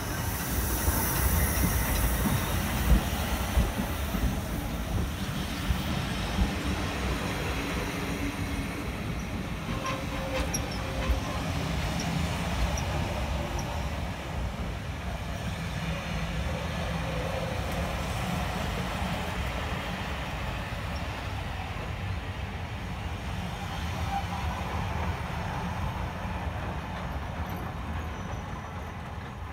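Taff Vale Railway O2 steam tank locomotive No. 85 passing close by with a hiss of steam in the first few seconds. Its train of carriages follows, rolling past with a steady low rumble and scattered clicks of the wheels, fading slightly near the end.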